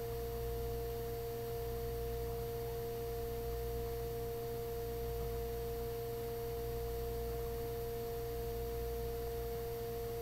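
Cabin drone of a small passenger plane's engines in flight: a steady low rumble with a clear, unchanging hum held over it.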